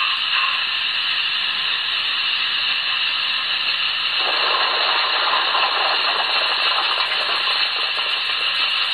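Sound system of a Broadway Limited model Union Pacific Big Boy steam locomotive playing the steady steam hiss of a standing engine. About four seconds in, a fuller, deeper hiss joins it.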